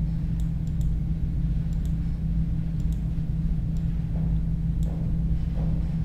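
Scattered sharp computer mouse clicks, several over a few seconds, over a steady low electrical hum.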